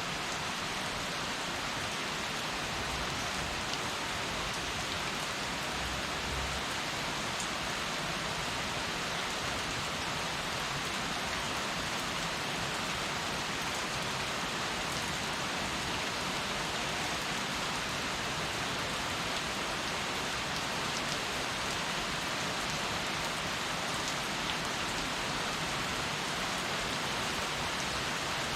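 Heavy rain falling steadily, an even hiss of drops hitting surfaces with occasional faint individual drop ticks.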